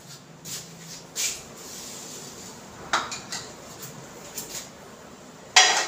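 Kitchen utensils and containers handled on the counter: a few light knocks and clinks, then a louder, longer clatter near the end.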